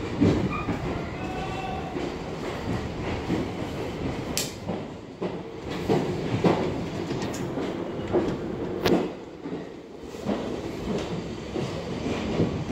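New York City Subway 6 train running in the tunnel, heard from inside the car: steady rumble and rattle, with wheels clacking over rail joints and a few sharp clicks. A faint high whine is heard in the first second or two.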